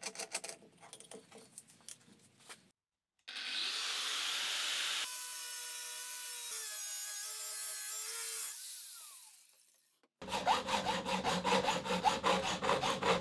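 A few light clicks as the angle grinder is handled, then the Makita angle grinder runs and cuts through a metal rail with a steady whine before winding down. After a short silence, a hand hacksaw saws aluminium in quick, even strokes.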